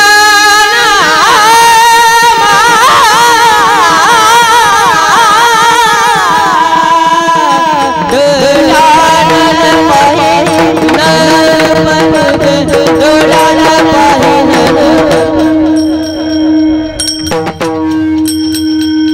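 Marathi devotional abhang sung with ornamented, wavering melodic lines over a steady held drone note, with tabla accompaniment.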